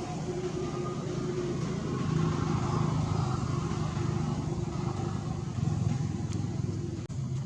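A motor vehicle engine running steadily, a low rumble with a steady hum above it, broken by a brief drop out near the end.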